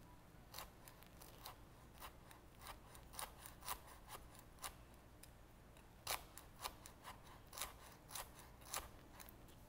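Chef's knife slicing a tight roll of fresh kaffir lime leaves thinly on a wooden cutting board: faint, crisp cuts, about two to three a second, with a short pause about halfway.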